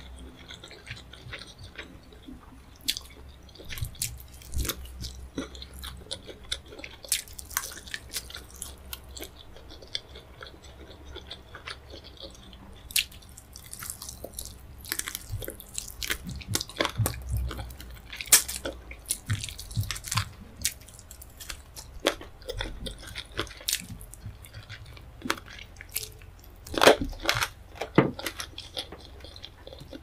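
Close-miked chewing and biting as a woman eats chicken drumsticks with rice and tomato stew: irregular sharp mouth and teeth clicks, with a louder bunch a few seconds before the end.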